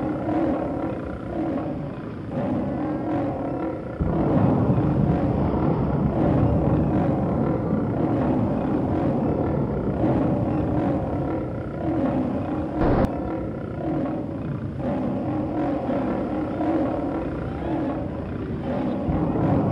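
Monster roaring sound effect: growling roars that rise and fall every second or two over a low rumble, getting louder about four seconds in, with one sharp click a little after halfway.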